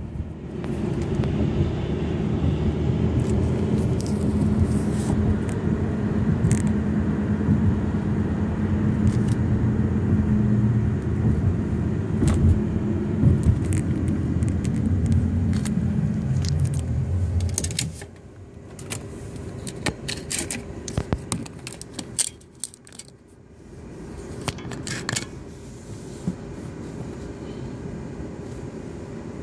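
Engine and road noise heard inside a moving car's cabin: a steady low drone that drops away a little over halfway through as the car comes to a stop. After that there is a quieter idle hum with scattered light clicks and rattles.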